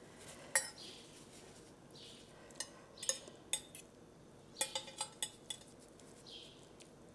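Metal fork and knife clinking and scraping against a plate while cutting and serving noodles: single sharp clinks about half a second in, then small clusters of clinks around three seconds and five seconds.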